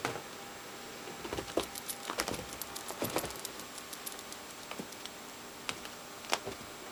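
A long-haired cat pouncing on carpet after a laser dot: a quick flurry of light jingling clicks with a couple of soft thumps for about two seconds, then a few scattered single clicks.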